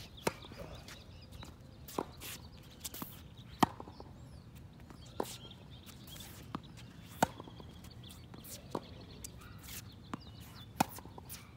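Tennis rally: sharp pops of the ball struck by racquets, a loud hit about every three and a half seconds with fainter pops in between.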